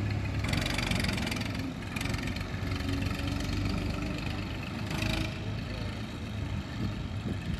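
Massey Ferguson 240 tractor's three-cylinder Perkins diesel engine idling steadily, with a few short bursts of hiss over it.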